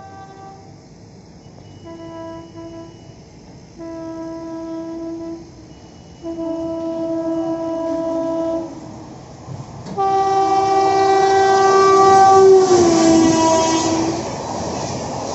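Horn of a WAP-7 electric locomotive sounded in a series of blasts as it approaches at speed: two short toots, then two long blasts, then a louder long blast whose pitch drops as the locomotive passes. Near the end the horn gives way to the steady noise of the coaches running through.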